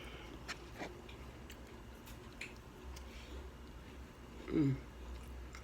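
A person chewing food with a mouth open, soft smacking and small wet mouth clicks scattered throughout. About four and a half seconds in there is a short voiced sound that falls in pitch.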